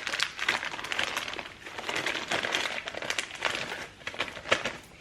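Plastic packaging crinkling and rustling as it is handled and opened by hand, a dense run of quick crackles.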